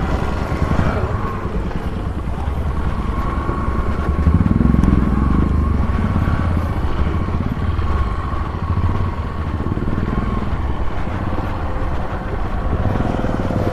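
Motorcycle running steadily on the move, its engine rumble mixed with wind buffeting on the microphone.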